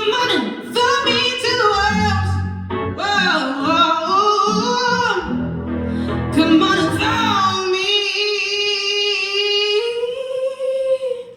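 A woman singing wordless, ornamented vocal runs live over low accompaniment. The accompaniment drops out about eight seconds in, and she holds one long closing note alone for about three seconds, lifting it slightly near the end.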